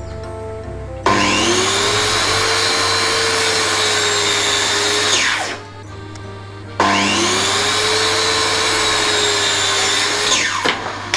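Handheld circular saw run twice. Each run starts abruptly with a rising whine, holds steady for about four seconds, then winds down.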